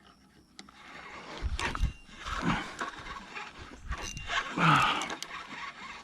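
Loud wordless voice sounds, yells and groans rising and falling in pitch, in several bursts, loudest a little past the middle.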